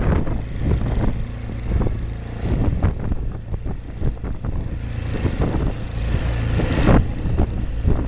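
Wind buffeting the microphone over the low drone of a boat's motor. A rush of wind noise swells from about five seconds in and drops off sharply near seven seconds.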